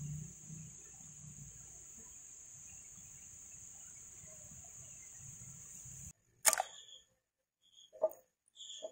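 A steady high-pitched hiss, like insects droning in the grass, cuts off suddenly about six seconds in. A sharp click follows, then two light knocks near the end as the aluminium pot is tipped to pour the green jelly liquid into a bamboo cup.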